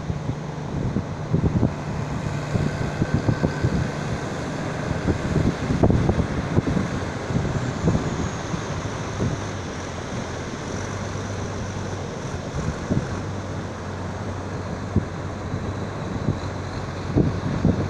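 Wind gusting on the microphone over the steady wash of surf, with a tractor's engine running low and steady underneath. The engine's hum drops in pitch about halfway through.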